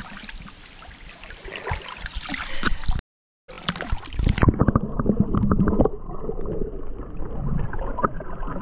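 A three-week-old puppy paddling in a swimming pool: light splashing and sloshing water. After a brief gap about three seconds in, the paddling and bubbles are heard muffled from under the water, with many small pops and dull sloshing.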